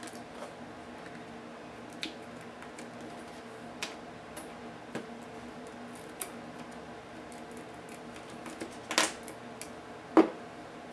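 Small clicks and scrapes of plastic parts and thin cables being handled as an Acer Aspire One netbook's screen assembly is taken apart, over a faint steady hum. Two louder knocks come near the end, the last as a pocketknife is set down on the table.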